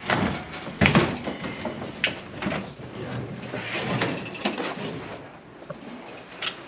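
Sheet-metal furnace cabinet clanking and scraping as it is worked loose from its ductwork and lifted by hand. There is a string of metal knocks, the loudest about a second in.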